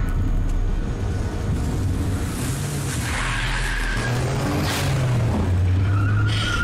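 A car engine running with a low steady hum, and tyres squealing and skidding: a brief squeal about halfway through and a longer one near the end.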